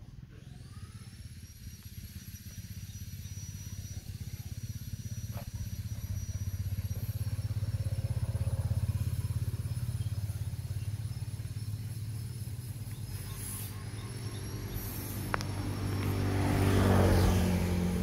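A motor vehicle engine running unseen, a low rumble that swells twice and is loudest just before the end, where its pitch rises. A faint steady high whine runs underneath.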